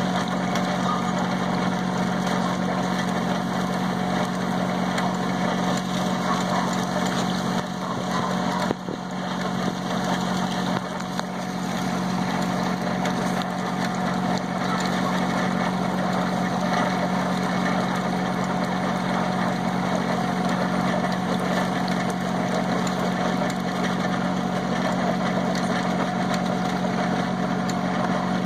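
Battery-powered gold concentrator running steadily: its electric motor and pump give a constant hum, with water splashing from the spout into the tub as material is fed into the classifier on top.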